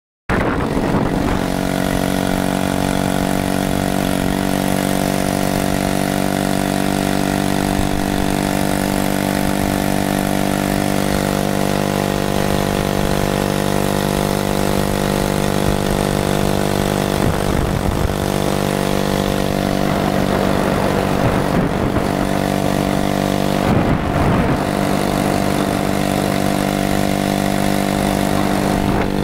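A Honda 50cc four-stroke engine on a motorized bicycle running at a steady pitch under way, with road and wind noise behind it.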